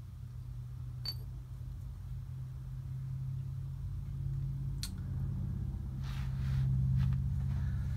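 A steady low machine hum that grows louder toward the end, with a couple of sharp clicks.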